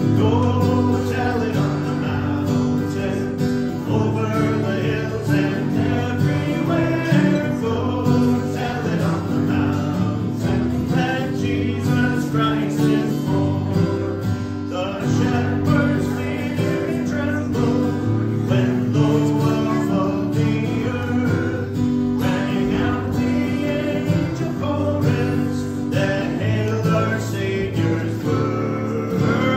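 Acoustic guitar strummed steadily, with a voice singing along.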